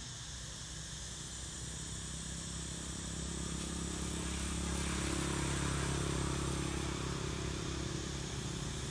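Outdoor ambience: a steady high insect hiss under a low engine hum that grows louder about halfway through, then eases off a little.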